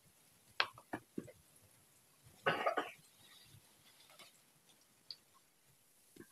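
A short cough about two and a half seconds in, the loudest sound, after a few short sharp clicks about half a second to a second in. Under it a faint steady hiss of pakoras frying in hot oil.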